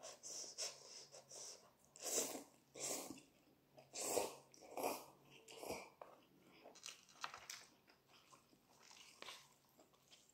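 A person slurping instant cup noodles and chewing. Several louder slurps come in the first half, then quieter chewing and small mouth clicks.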